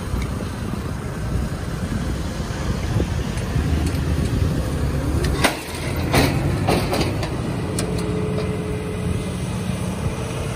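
Farm tractor's diesel engine running steadily as it tows an empty boat trailer over beach sand, with a few sharp metallic clanks about halfway through.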